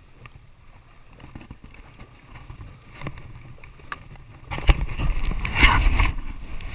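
Shallow water sloshing and splashing around a wooden fishing boat's hull and the legs of people wading beside it, with a few faint knocks. About two-thirds through, a louder stretch of splashing with a low rumble lasts a second or two.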